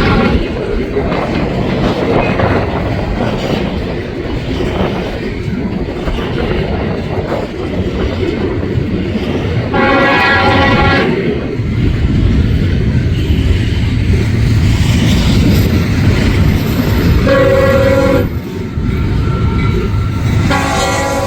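Freight train cars rolling past with a steady rumble and wheel clatter. A locomotive's five-chime K5HL horn blows a blast about ten seconds in, a shorter one about seventeen seconds in, and another starting near the end, sounded for the road crossing.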